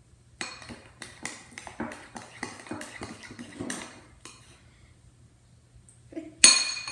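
A spoon clinking and scraping against a bowl while stirring glue with baking soda stirred in, in quick repeated strokes for about four seconds. After a pause, one loud sharp clack near the end.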